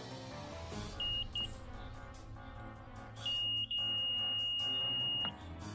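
Multimeter's continuity buzzer beeping as its probes touch a diode removed from the board: two short high beeps, then one long steady beep of about two seconds, the reading given by a shorted diode. Background music plays throughout.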